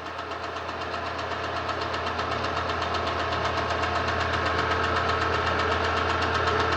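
A motor-driven machine running steadily with a low hum and a fast, even clatter, slowly getting louder.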